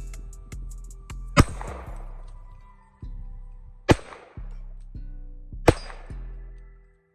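Three single shots from a Glock 21 .45 ACP pistol, each a sharp crack with a short echoing tail, fired roughly two and a half and then two seconds apart, over background music with a bass line.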